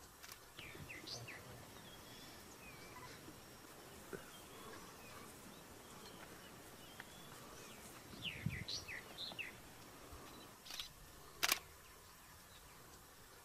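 Outdoor ambience with small birds chirping in short clusters of a few quick notes, a low thud about eight and a half seconds in, and a sharp click near the end, the loudest sound.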